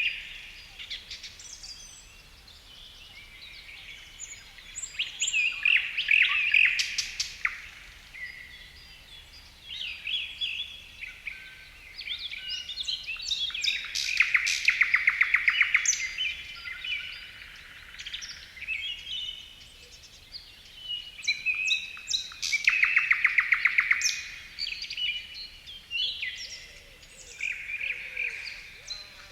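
Several wild songbirds singing and chirping at once in a forest dawn-chorus-like ambience, with overlapping whistled phrases and two loud, fast trills of rapidly repeated notes around the middle and again later on.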